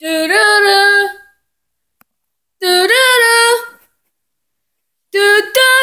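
A high-pitched voice singing in three short sustained phrases, each note held and sliding in pitch, with dead silence between the phrases.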